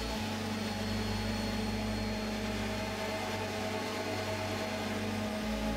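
Electric random orbital sander with a dust-extraction hose, running steadily as it sands the top of a wooden box. It makes an even motor hum with a thin high whine over a broad hiss.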